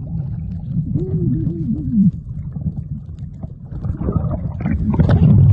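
Underwater sound picked up by a camera held just below the sea surface: a steady low rumble of moving water against the camera, with a few muffled wavering tones about one to two seconds in and louder sloshing near the end.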